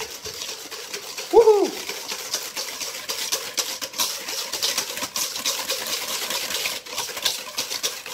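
Wire whisk beating an egg-and-yogurt batter in a stainless-steel bowl: rapid, steady scraping and clinking strokes against the metal. A short falling voice sound cuts in about a second and a half in.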